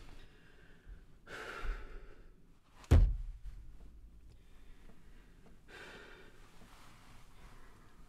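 A man sighing and breathing out heavily in a car's cabin: one long breath a little over a second in and another near six seconds. Between them, about three seconds in, comes a single sharp thump, the loudest sound.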